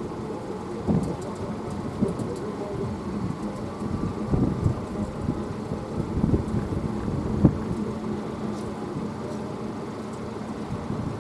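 Wind buffeting the microphone in irregular gusts over a steady low hum.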